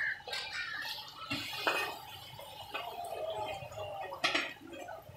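Hot water poured from a metal jug into a large cauldron of cooking meat, hissing and splashing against the hot pot as it boils up, with a few sharp metal clinks. This is the stage of adding hot water to the meat so that it stays tender.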